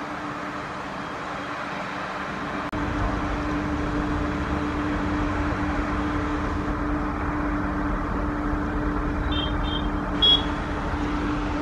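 Electric locomotive hauling a passenger train, running with a steady hum. After about three seconds a low rumble of wind on the microphone joins it. A few short high beeps come near the end, the loudest about ten seconds in.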